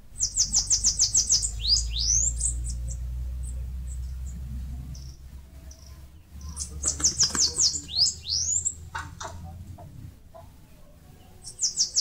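Bananaquit singing: a high, rapid run of thin notes followed by a few rising sweeps, given three times about five seconds apart. A low rumble lies underneath.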